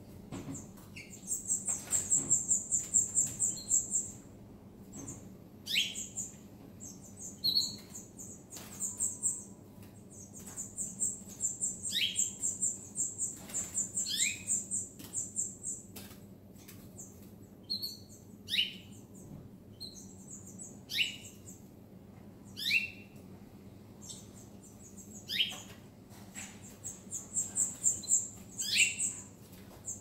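Caged canaries and small finches calling and singing: long, fast, high trills, broken by short downward-sliding chirps every second or two.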